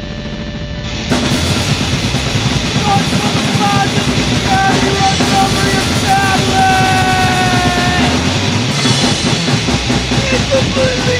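Extreme grindcore/cybergrind music: a droning lead-in bursts about a second in into a dense, loud wall of distorted noise over a drum kit. Held high-pitched tones ring out in the middle, and gliding squeals come near the end.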